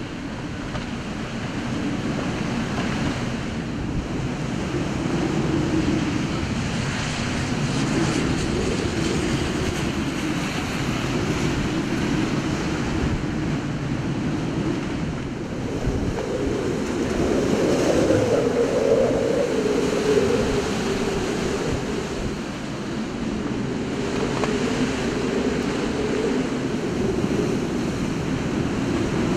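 Hurricane Sandy's wind blowing hard and buffeting the microphone, a steady rushing noise that swells and eases in gusts, strongest a little past the middle.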